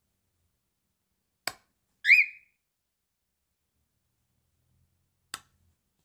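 A cockatiel gives one short whistled chirp, rising then falling, about two seconds in. A sharp click comes just before it and another near the end.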